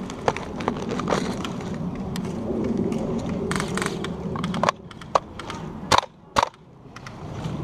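Sharp cracks of airsoft gunfire over scuffing movement noise. The two loudest shots come close together about six seconds in.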